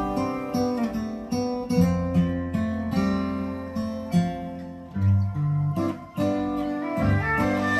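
Acoustic guitar music, a run of plucked and strummed notes over a bass line, played back through a pair of Jensen CC315 loudspeakers.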